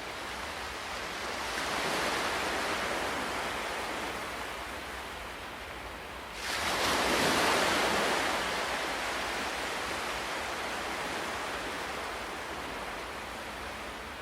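Ocean waves breaking on a shore. One wave swells about a second and a half in, and a bigger one breaks more suddenly about six seconds in, then slowly washes out.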